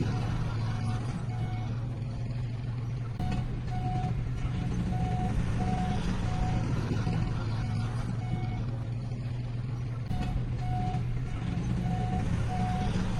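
Heavy earthmoving machinery's diesel engine running with a steady low hum, while a reversing alarm beeps in runs of evenly spaced beeps, about one and a half a second.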